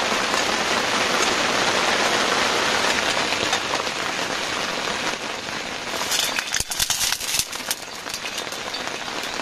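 Very heavy rain falling on a tent. About six seconds in the rain eases a little and a burst of sharp crackles cuts through for a couple of seconds.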